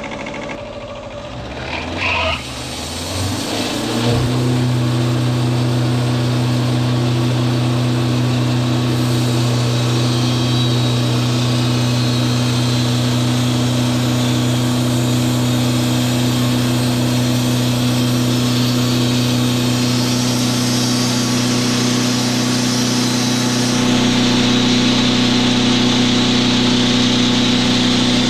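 Portable bandsaw sawmill's engine starting up and coming to a steady speed about four seconds in, then running at a constant pitch. Near the end the sound grows fuller and hissier.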